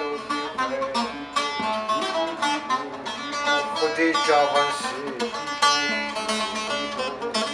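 A long-necked saz lute plucked in a quick, continuous run of notes, with a man's voice singing over it around the middle.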